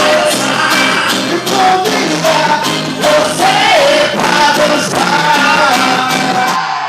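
Loud quadrilha junina dance music: a song with a sung melody over a steady beat. It cuts off suddenly near the end, leaving a short ringing fade.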